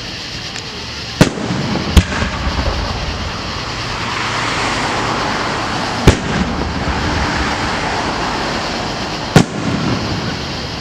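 Aerial fireworks shells bursting: four sharp booms, two close together about a second in, one near the middle and one near the end, with lighter crackling after the bangs and a steady rushing background between them.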